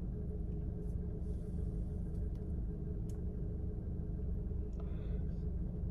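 Steady low rumble with a constant hum underneath, broken only by a few faint clicks.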